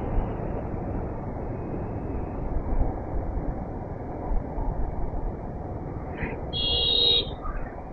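Steady wind and road rumble of a motorcycle ride, with a vehicle horn sounding once, briefly, near the end.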